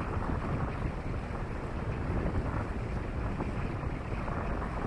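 Steady wind buffeting the microphone aboard a motor yacht under way, a low rumbling noise with no distinct events.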